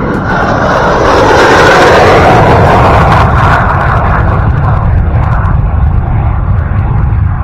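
Jet aircraft making a low pass: its noise swells quickly, is loudest about two seconds in and drops in pitch as it goes by, then trails off into a steady low rumble.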